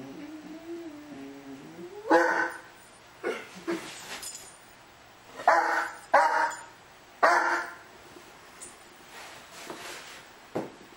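A young dog whines with a wavering pitch, then gives about five short, loud barks between roughly two and seven seconds in. It is play barking at a cat hiding under a bed.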